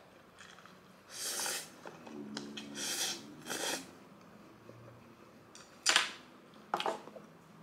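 Mouth sounds of eating and drinking: a series of short, airy slurps as noodles are drawn in and then sipped from a cup, the sharpest and loudest about six seconds in.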